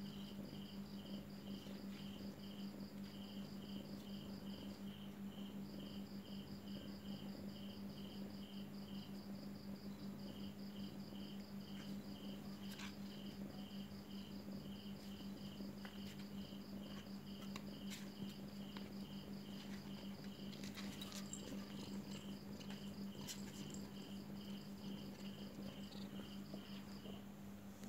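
Crickets chirping in steady rhythm: two trains of short, evenly spaced chirps, one higher-pitched than the other, over a steady low hum, with a few faint clicks in the second half.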